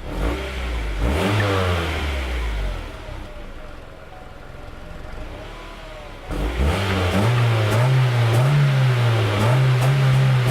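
Acura Integra's four-cylinder engine revved through its exhaust. A quick rev rises and falls back within the first three seconds, followed by a few seconds at a quieter idle. About six seconds in it is revved again and held at raised revs, wavering slightly.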